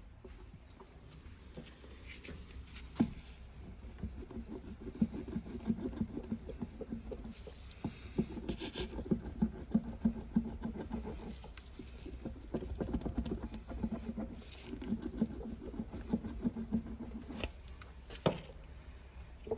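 Hand work on the inside of a tyre during a puncture repair: runs of rapid, fine ticking strokes broken by short pauses, with a sharp click a few seconds in and another near the end.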